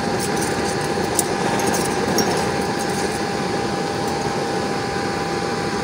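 Homemade used-oil blue-flame burner, with a 24-hole nozzle made from a 1/2-inch coupling and end cap, running with a steady rushing noise. A thin steady whine runs under it, and a few faint crackles come in the first half.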